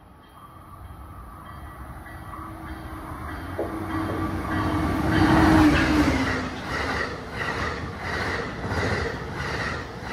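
Pacific Surfliner passenger train passing through a station at speed, growing louder to its loudest about halfway in as the lead cab car goes by. A steady tone drops slightly in pitch as it passes, and a regular clicking of wheels over rail joints, about two a second, follows in the last few seconds.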